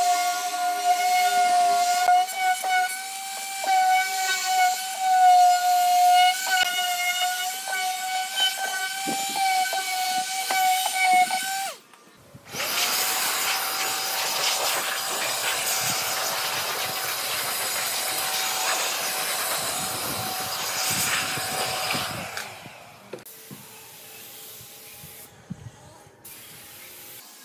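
Electric sheet sander running over a pine board, a steady whine with a grinding hiss. About 12 s in it gives way to a loud, even hiss of compressed air from a blow gun clearing the dust, which stops about 22 s in; a much quieter hiss of a spray gun applying finish follows.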